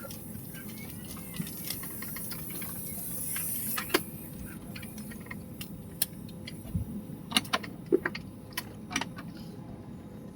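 A steady low rumble with scattered sharp clicks and clinks, most of them in the second half.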